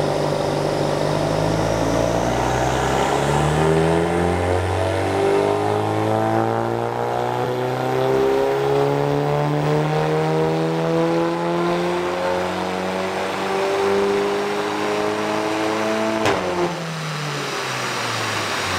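VW Golf 8 R's turbocharged 2.0-litre four-cylinder, through an aftermarket MG Motorsport exhaust, on a chassis dyno power run. It holds steady for a couple of seconds, then pulls up through the revs steadily for about thirteen seconds. A sharp crack comes about sixteen seconds in, and the revs fall away.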